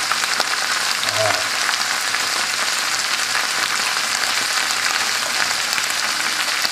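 Risotto simmering in a frying pan with a steady crackling sizzle, stirred with a wooden spoon.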